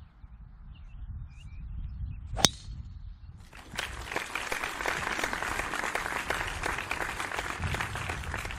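Golf driver striking a teed ball: a single sharp crack with a brief ring, about two and a half seconds in. About a second later a dense crackling noise like applause starts and runs for about five seconds.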